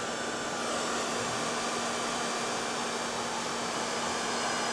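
Hair dryer running steadily, a constant rush of air over a steady low hum, used to warm the painted fender metal so it can be pushed out without cracking the paint.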